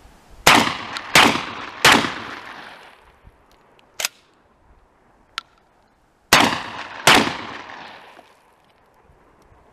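Panzer AR-12 semi-automatic 12-gauge shotgun firing five shots: three in quick succession about two-thirds of a second apart, then after a pause broken by two sharp clicks, two more shots. Each shot trails off in echo.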